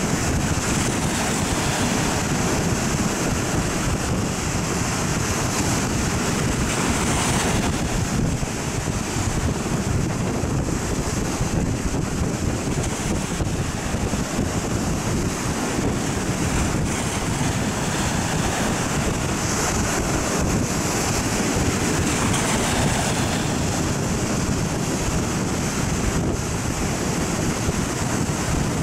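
Heavy storm surf breaking and washing up the beach without a pause, with wind buffeting the microphone.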